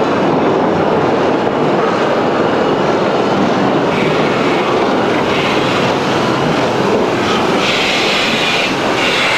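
Steam locomotive 24 009, a class 24, working close by: a loud, steady rushing noise, with hissing bursts of steam starting about four seconds in and again near the end.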